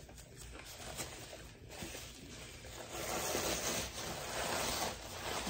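Paper napkin rustling and crinkling as it is unfolded, growing louder about three seconds in.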